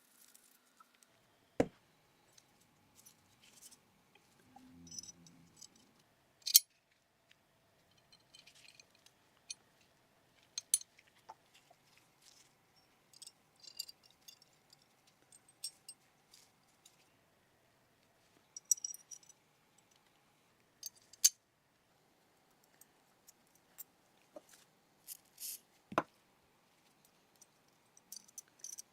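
Small steel pistol parts of a Remington Rand 1911A1 being handled and worked on: scattered sharp metallic clicks and taps with bits of light scraping, a few louder clicks standing out among them.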